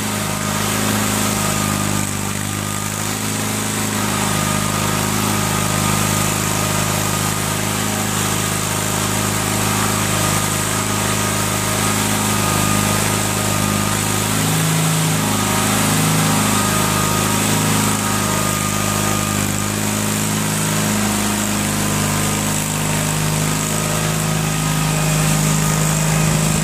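Small engine of an Air Horse aircraft tug running steadily while it moves a plane.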